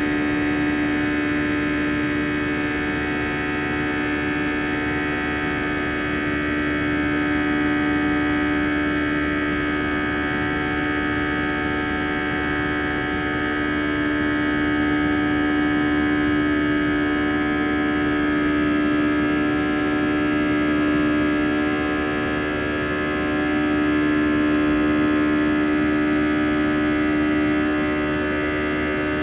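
Airbus A320's CFM56-5A turbofan engines heard from inside the cabin, a steady buzzing drone: a strong low hum with many fainter steady tones above it, swelling slightly in level now and then.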